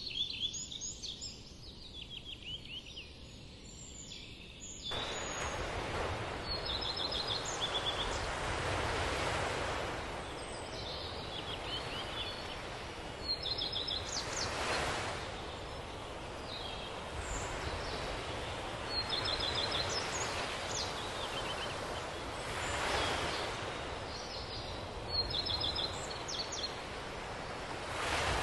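Small birds singing, repeating the same short trilled phrase every few seconds. About five seconds in, a steady rushing noise begins suddenly and swells and fades every few seconds.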